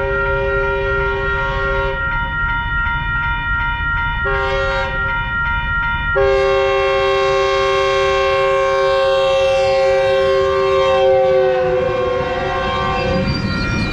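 Metrolink commuter train's horn sounding the grade-crossing signal: a long blast that ends about two seconds in, a short blast, then a long blast held about seven seconds whose pitch drops as the train passes. A crossing bell rings throughout, and the rumble of the passing train comes in near the end.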